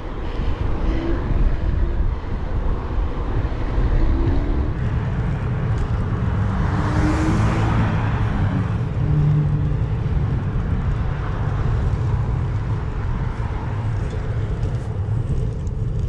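Steady wind rumble on a bicycle-mounted action camera's microphone while riding, with a car driving past about seven seconds in.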